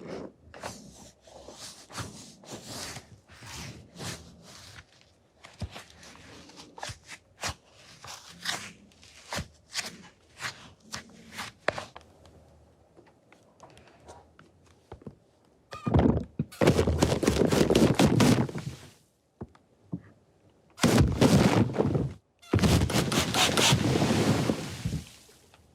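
Close-miked ASMR trigger sounds: soft, scattered taps and clicks for about fifteen seconds, then three louder spells of fast, dense tapping and crackling.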